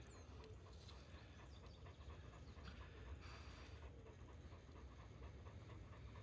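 Komondor panting softly and quickly, a faint, even breath rhythm of several breaths a second.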